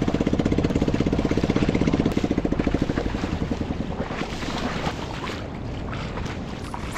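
Small boat engine on a wooden outrigger canoe running under way with a fast, even pulse. About three seconds in it drops in level, leaving mostly a steady rush of wind and water.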